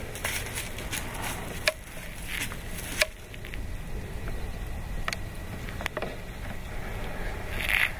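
A deer walking and feeding in dry leaves and brush: scattered crunches and sharp twig snaps, with a louder rustle near the end, over a steady low rumble.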